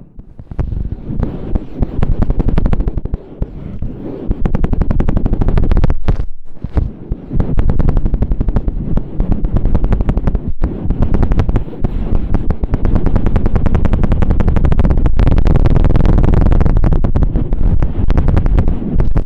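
Ear-scraping stick worked very fast against the microphone in the ASMR 'helicopter' technique: a loud, even run of scraping strokes, many a second, with short breaks about six, ten and fifteen seconds in.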